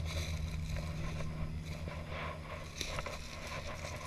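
Footsteps through dry leaf litter and brush, with irregular brief scrapes and rustles, over a steady low hum.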